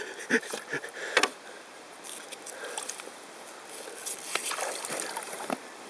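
Water splashing and trickling around a paddled inflatable canoe, with a few short splashes or knocks in the first second or so and a couple more later.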